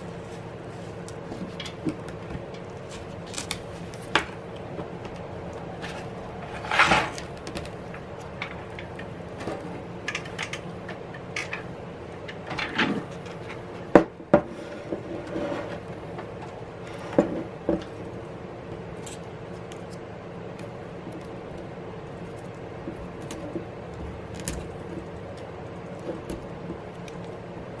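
Plastic prying picks clicking and scraping along the glued screen edge and aluminium frame of an iPad Pro, with knocks of the tablet being handled on a table as the screen adhesive is worked loose. A steady hum runs underneath; the loudest sounds are a scrape about seven seconds in and a sharp click about fourteen seconds in.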